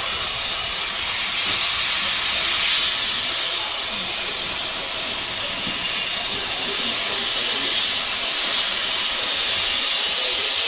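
Small 0-4-0 tank steam locomotive running slowly light engine with a steady loud hiss of escaping steam.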